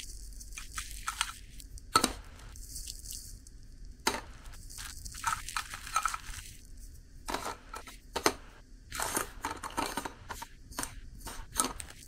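Irregular handling noises: crinkling and tearing with light clinks, and sharp clicks about two seconds in and a little after eight seconds.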